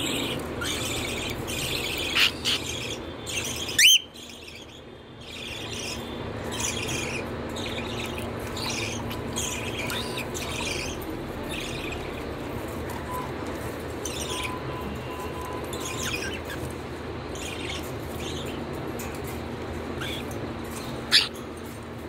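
Caged cockatiels chirping, a steady run of short chirps with a few louder sharp calls: one rising call about four seconds in and another near the end.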